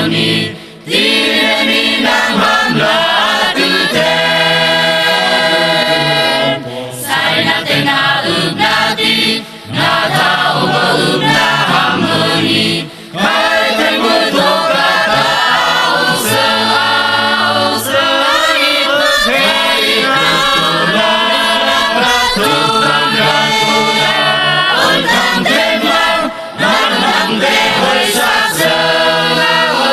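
Mixed church youth choir of men, women and girls singing a song in parts. The singing is continuous, with short breaks between phrases about a second in and again around ten and thirteen seconds in.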